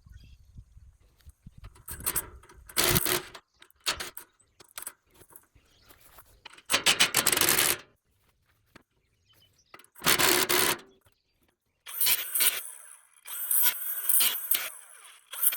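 Metal hand tools and hardware scraping and clattering in short bursts of about a second each, with a run of quick clicks and rattles near the end.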